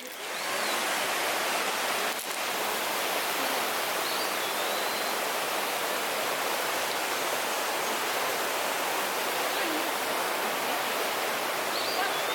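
Steady rush of flowing water, even and unbroken, with a few faint short high chirps over it.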